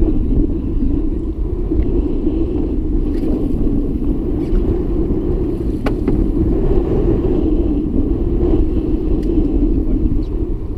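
Steady low rumble aboard an open panga fishing boat at sea, with a few faint clicks.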